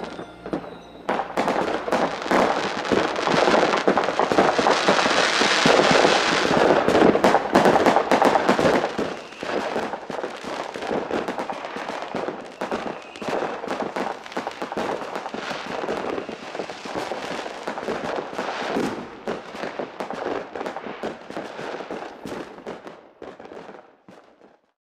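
Dense crackling and popping of firecrackers and fireworks. It swells about a second in and is loudest over the next several seconds, then thins out and fades away near the end.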